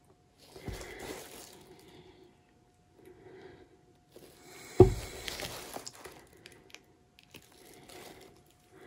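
Intermittent soft squishing and scraping from handling paint and tools at a work table during a paint pour. One sharp knock nearly five seconds in is the loudest sound, with a few light clicks after it.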